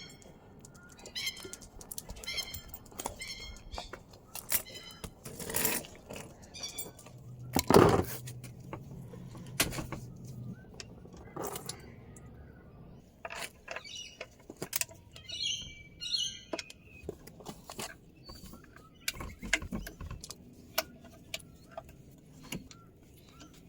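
Scattered sharp clicks and knocks, with short high chirps near the start and again past the middle. The loudest knock comes about eight seconds in, with a brief low hum around it.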